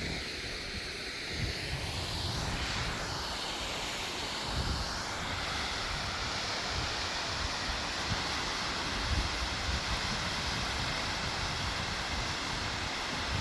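Steady rushing of water falling at a waterfall, a continuous hiss, with wind buffeting the microphone in low, uneven rumbles.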